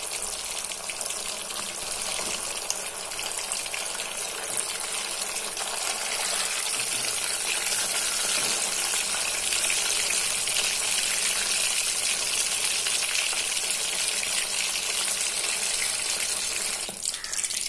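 Masala-coated katla fish piece sizzling steadily as it fries in hot oil in a pan, growing a little louder partway through.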